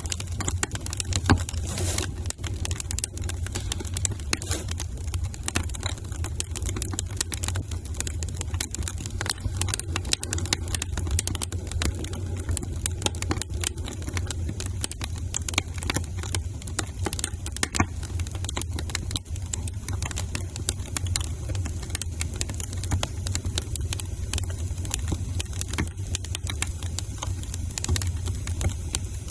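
Wood fire crackling: dense, irregular pops and snaps over a steady low rumble.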